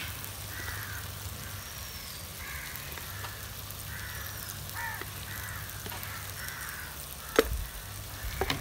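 Crows cawing repeatedly over a faint sizzle from a pot of masala frying on a wood fire. A single sharp knock comes near the end.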